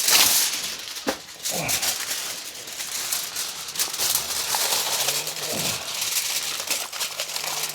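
Aluminium foil crinkling and rustling as it is torn off and pressed around a whole pig's ears, an irregular crackle of small clicks.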